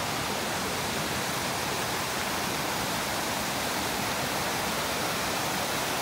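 Rapids of a rocky creek rushing steadily over boulders, a constant even noise of white water.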